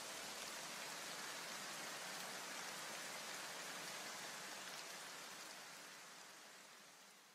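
Steady, even hiss of noise with a rain-like texture, the white-noise wash left over from the electronic backing music, fading out over the last two seconds.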